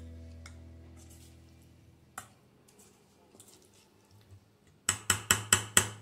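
Metal spoon knocking against a stainless steel bowl while tossing paneer cubes in marinade: a single knock about two seconds in, then a quick run of about seven sharp clicks near the end, some five a second. Background music fades out at the start.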